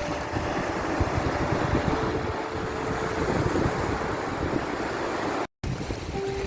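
Sea waves and surf washing steadily, with a heavy low rumble, broken by a split-second dropout to silence near the end.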